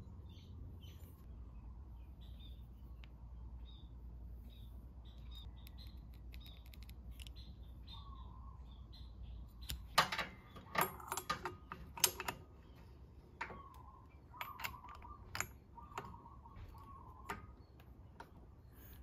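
Sharp metallic clinks and clicks from about halfway through, as a clutch holder tool and a breaker bar with a 19mm socket are fitted to the scooter's clutch nut. A quieter first half holds faint bird chirps.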